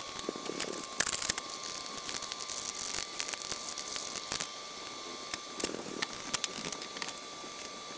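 Hand deburring of a small aluminium bracket: a deburring tool and then a flat file scraping along the sheet-metal edges in short strokes, with light clicks of the part and tools being handled.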